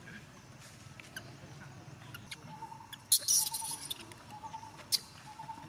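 A baby macaque giving short high squeaks, a burst of them about three seconds in and one more near the end. A faint trill repeats in short runs behind them from about halfway.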